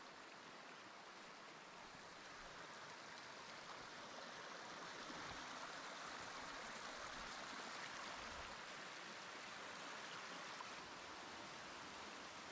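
Shallow mountain stream running over rocks and small cascades, a steady rush of water that grows louder a few seconds in.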